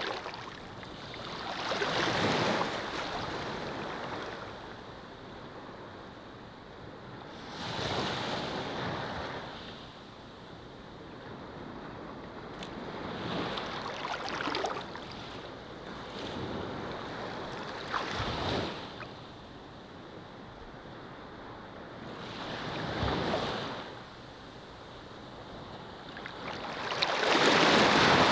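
Ocean surf washing in, each wave swelling and fading away, about six surges over the stretch, the last the loudest.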